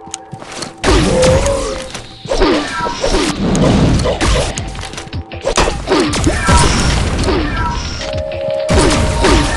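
Loud music with many sudden crashing bangs through it.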